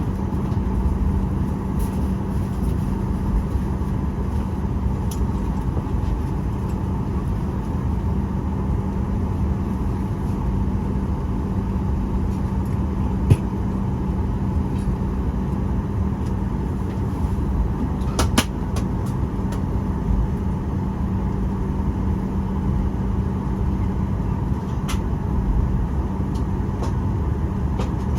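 Steady cabin noise inside a Boeing 737-800 on the ground before takeoff: a low rumble of the engines and air conditioning with a constant hum, broken by a few short clicks around the middle.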